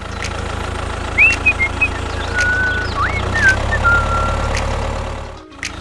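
Tractor engine running steadily with a low, evenly pulsing rumble, a few short bird chirps over it in the middle; the sound drops away briefly near the end.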